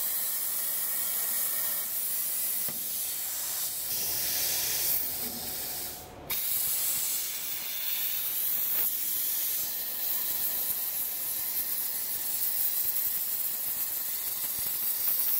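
Fastcut G6 CNC plasma cutter's torch cutting steel plate: a steady, high hiss from the arc and its air jet. The hiss drops out sharply for a moment about six seconds in.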